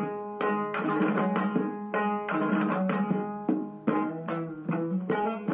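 Background music led by a plucked string instrument, picking a melody in quick, evenly spaced notes.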